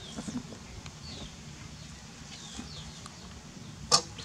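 Birds chirping faintly in short, high notes that fall in pitch, over a low steady hum. A single sharp tap about four seconds in is the loudest sound.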